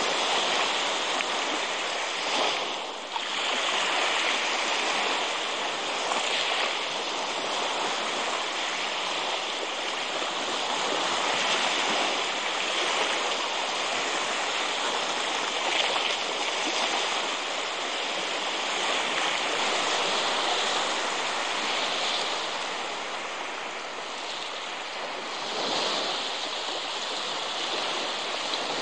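Baltic Sea surf washing onto a sandy beach: a constant hiss of breaking waves that swells and eases every few seconds.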